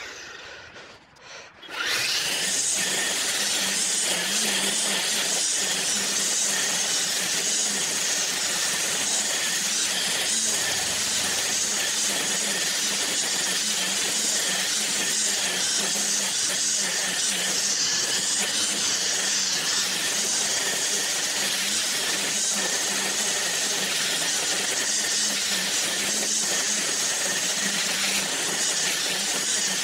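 String trimmer running steadily at high speed, its spinning line cutting through long grass. The sound drops out for about two seconds at the start, then comes back in.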